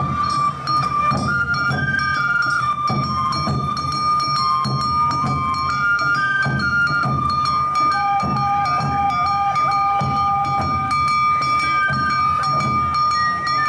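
Music: a high melody moving up and down in steps over a long held high note, with regular low drum beats underneath.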